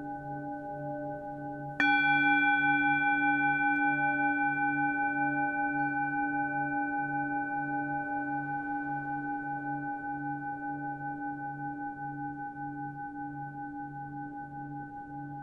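Singing bowls ringing, several tones held with a slow wobble. About two seconds in a bowl is struck, adding brighter overtones, then fades slowly.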